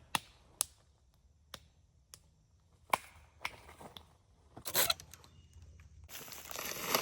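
Scattered sharp snaps and crinkling rustles, then a longer, louder rustling starting about six seconds in.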